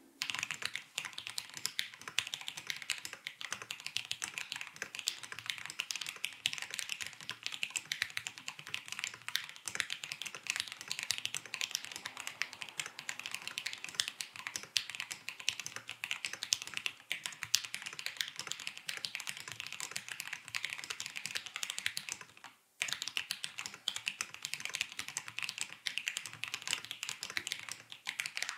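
Custom mechanical keyboard being typed on fast, about 100 words a minute: a dense, continuous stream of keystroke clacks with a brief pause about three-quarters of the way in.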